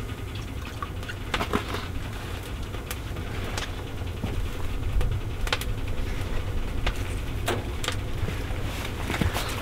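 Wood-fired maple sap evaporator running during a boil, a steady low rumble from the firebox and pans, with scattered sharp clicks and knocks of metal and wood as it is tended.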